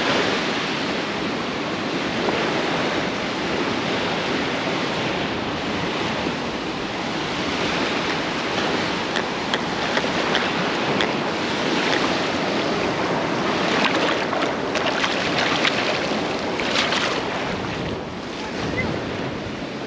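Ocean surf washing onto a beach, with wind on the microphone and scattered short crackles in the second half.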